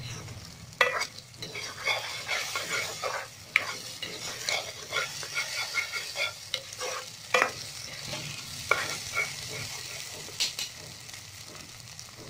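Eggs sizzling as they fry with peas and onion masala in a black non-stick wok, stirred and scrambled with a white plastic spatula that scrapes and taps against the pan in irregular strokes.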